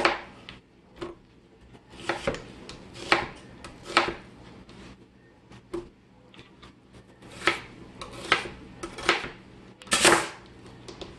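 Irregular knocks and clinks of cookware and utensils, roughly one a second, as onion is added to a roasting pan with a seared rump roast. The loudest clatter comes near the end.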